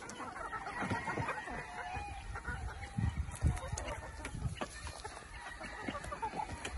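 A flock of young gamecocks clucking and calling in short scattered bursts while they peck feed from a metal pan, with light taps and knocks from the pecking.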